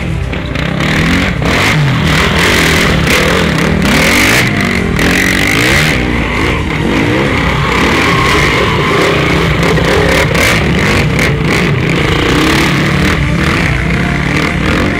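Enduro dirt bikes riding past, their engines revving up and down repeatedly as the riders accelerate and shift on a dirt trail.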